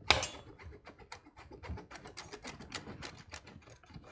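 A block of Parmigiano Reggiano grated on a metal box grater: quick, even rasping strokes several times a second, after a single sharp knock right at the start.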